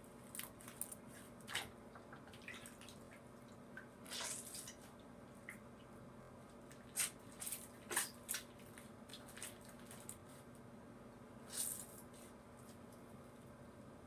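Soft slime being handled in a sink of hot water: scattered wet squelches and drips, a few of them louder.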